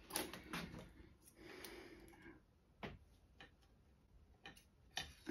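A scattering of light clicks and taps as small metal crankshaft pieces are handled and lined up on a vermiculite soldering block.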